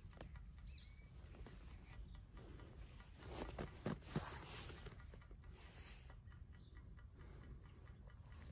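Small birds chirping faintly: a quick chirp about a second in, then thin high calls near the end. A few brief scuffing noises a little before the middle are the loudest sound.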